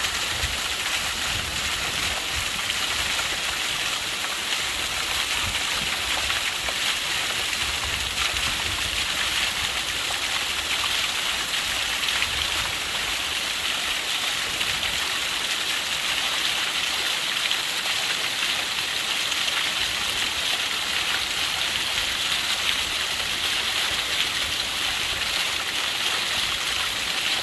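Small mountain waterfall splashing: a steady, unbroken rush of falling water.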